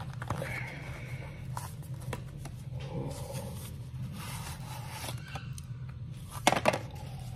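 Hands handling small product packaging: soft rustling and crinkling of a torn-open shipping pouch and a small cardboard box, with two sharp clicks about six and a half seconds in as the inner tray is slid out of its cardboard sleeve.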